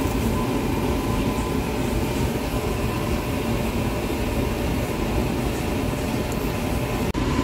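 Steady, low rumbling machine-like background noise with a faint hum in it, unbroken until a brief dip near the end.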